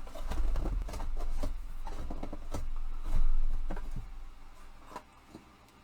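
Rack parts being handled and slid into their slots: scattered light clicks and knocks over a low handling rumble, dying down after about four seconds.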